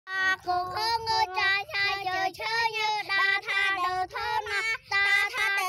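A young child singing unaccompanied in a high voice, a melody of short held notes with brief breaks between phrases.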